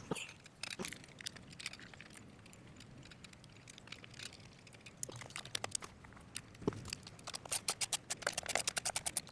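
Ratchet wrench clicking while a bolt is run back in: scattered clicks, then a quick, even run of clicks near the end.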